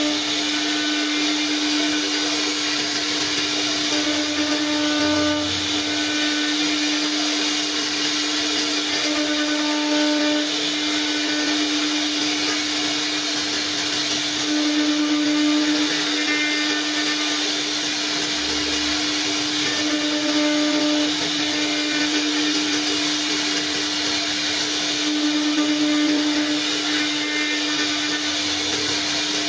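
CNC router spindle running with a steady high whine over a hiss, the tone swelling slightly every few seconds.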